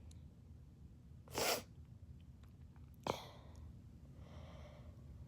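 Quiet sniffs and breaths of a person in a sneezing fit, working up to the next sneeze. There is a short noisy burst about a second and a half in, a sharper one about three seconds in, then a faint breathy sound.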